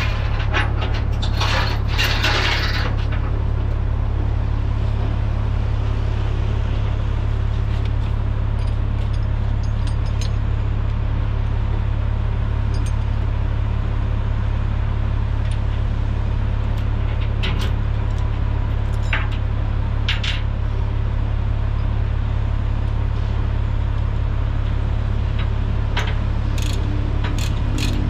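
Steel tie-down chain clinking and clanking as it is handled and hooked over the bulldozer blade, with a fast run of clicks near the end as a ratchet chain binder is worked. A steady low rumble lies under it throughout.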